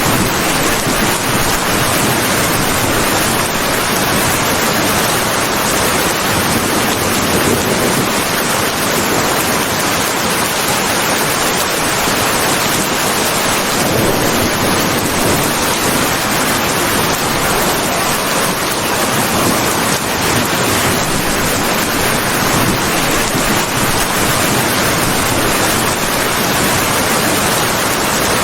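Steady heavy rain falling, an even hiss of water with no distinct drops or thunder.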